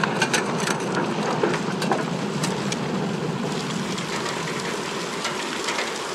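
Aftermath of an explosion: rain and falling debris pattering down, with scattered sharp crackles over a steady hiss that slowly dies away.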